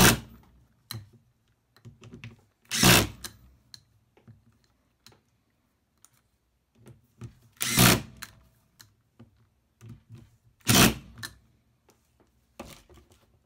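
Small metal parts clicking and clattering by hand as the one-way (sprag) starter clutch bearing is worked into place, with three louder clacks about 3, 8 and 11 seconds in.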